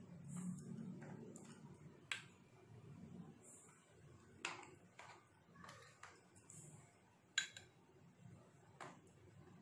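A spoon clinking against a ceramic bowl while scooping cream: about five faint, sharp clinks, the loudest a little past halfway.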